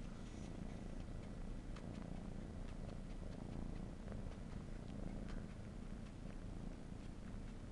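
Cat purring steadily while suckling on a blanket, with scattered faint clicks of sucking over the purr.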